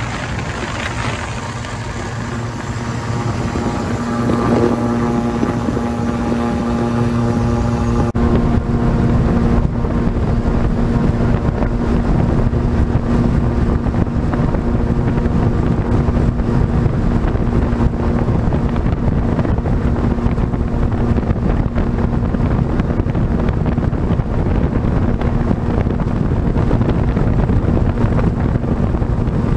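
Lake LA-250 Renegade flying boat's six-cylinder Lycoming engine and pusher propeller at high power as the hull skims the water, heard from inside the cabin. The engine drone grows louder over the first several seconds as power comes up. After about eight seconds it turns into a steady, louder mix of engine drone with rushing wind and water noise.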